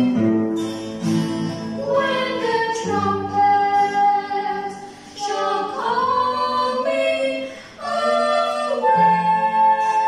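Two women and a man singing a song together, accompanied by an acoustic guitar: long held notes in phrases, with short breaks about five seconds in and near eight seconds.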